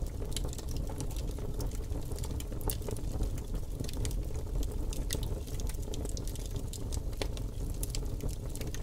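Campfire crackling, with frequent irregular sharp pops over a steady low rumble.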